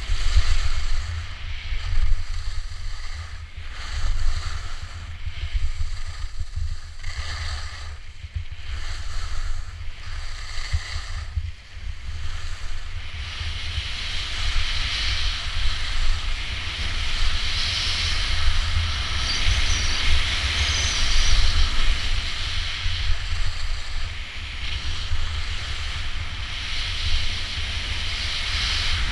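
Skis sliding and scraping over snow with a steady hiss, and wind buffeting the microphone throughout. About halfway through, the scrape becomes steadier and louder.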